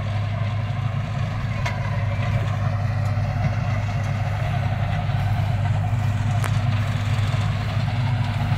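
Tractor diesel engine running steadily under load with a low, even drone as it pulls a seed drill sowing wheat into mulched rice stubble.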